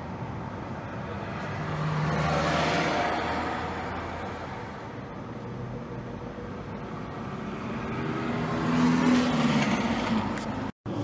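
Engine and road noise of a moving car heard from inside the cabin, with a low engine hum that swells louder twice, about two seconds in and again near the end, before the sound cuts out for a moment.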